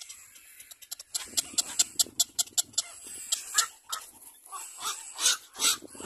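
Little black cormorant chicks begging at the nest: a rapid, irregular run of short sharp calls, starting about a second in.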